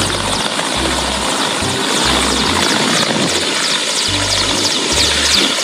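A large Mi-8-family transport helicopter flying low past, its turbines and rotor making a steady, dense noise. Background music with a pulsing bass plays underneath.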